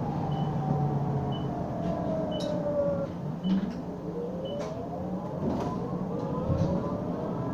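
Bus drivetrain heard from inside the saloon: a whine that falls in pitch as the bus slows, then rises again from about halfway through as it pulls away, over a steady running rumble. A short high beep sounds about once a second through the first half.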